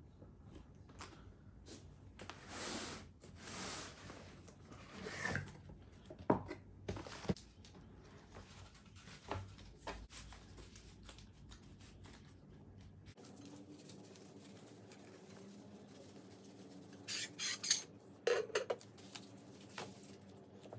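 Small metal parts and tools clinking and rustling as they are handled and set down, with irregular sharp clicks and a brief run of metallic clinks near the end.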